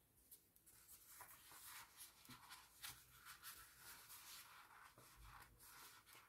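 Faint rustling and light scratchy ticks of the paper sheets of a sticker book being handled by fingers.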